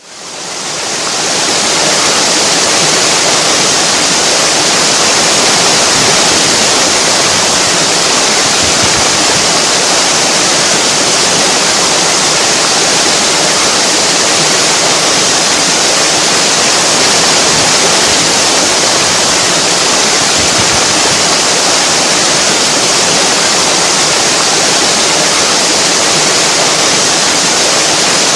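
Waterfall pouring steadily, a continuous loud rushing hiss that fades in over the first second or two.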